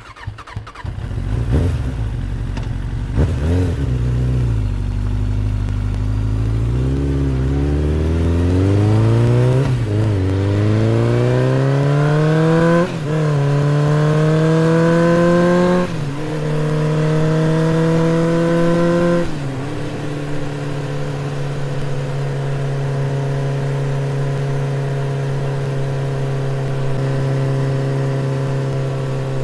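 1950 Triumph Thunderbird 650's parallel-twin engine fires up and the motorcycle accelerates, its pitch climbing and dropping at each of several gear changes, then settles to a steady cruise for the last third.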